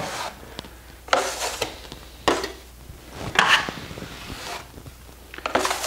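Wide taping knife scraping excess joint compound off a plaster wall in about four separate strokes, pulling the final skim coat tight.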